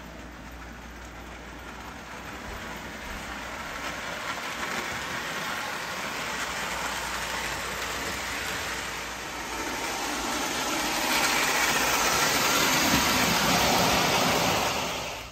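Marx 1829 plastic steam locomotive, 2731 tender and passenger cars running on three-rail O-gauge tinplate track: a steady whir and clatter of the electric motor and metal wheels on the rails. It grows louder through the second half, then cuts off suddenly at the end.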